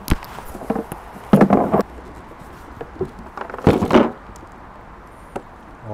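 Hard plastic YETI 35-quart cooler being handled on a table: a sharp click as the lid comes down, then clunks and knocks as the heavy cooler is shifted and tipped, with a couple of small clicks later.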